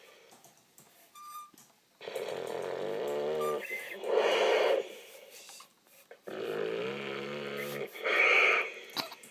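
Dog snoring in its sleep: two slow breaths, each a long pitched snore followed by a shorter, louder one, with quiet pauses between.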